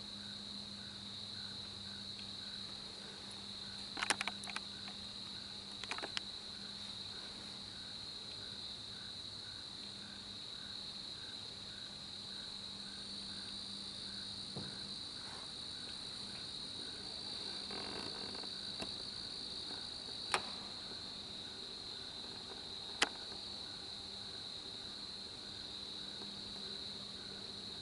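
Steady high-pitched insect chorus, with a few short sharp clicks.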